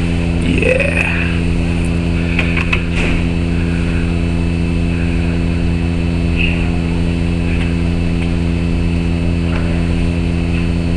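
Loud, steady low hum made of several even tones stacked together, unbroken throughout. A short rising squeak comes about a second in, and a few faint clicks follow two to three seconds in.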